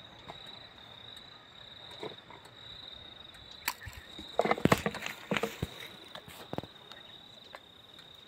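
A cricket trilling steadily on one high note, with crackles and clicks near the middle from a clear plastic bottle being handled in thick gloves.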